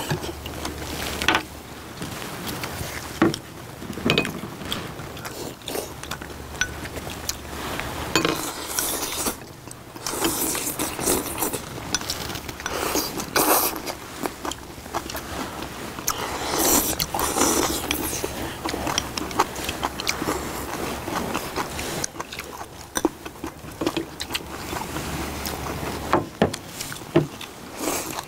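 Several people eating close to the microphone: chewing and slurping soup, with chopsticks and spoons clicking against ceramic bowls.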